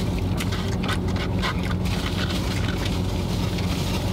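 Steady low hum of a car running, heard inside the cabin, with scattered clicks and scrapes of food containers and plastic utensils being handled during eating, mostly in the first couple of seconds.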